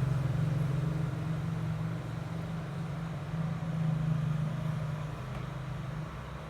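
A steady low mechanical hum, slowly fading.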